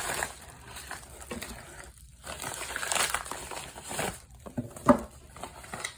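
Packaging being unwrapped by hand: irregular crinkling and rustling, with a few sharp clicks and one louder snap near the end.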